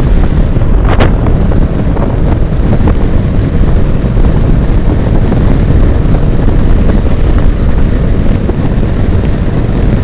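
Wind buffeting the microphone of a Yamaha NMAX 155 scooter riding at highway speed, with the scooter's engine running underneath as a steady, dense rumble. There is a short click about a second in.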